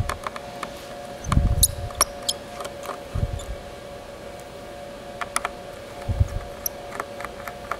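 Small screwdriver clicks and taps on screws and metal parts inside an opened Panasonic Toughbook CF-30 laptop, with a few dull handling thumps, over a steady high-pitched hum.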